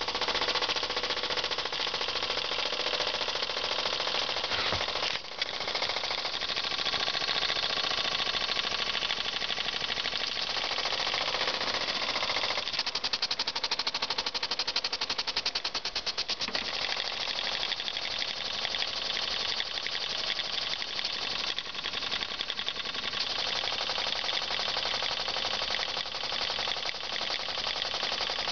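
Small live steam disk-valve engine running at speed, beating out a rapid, even rhythm.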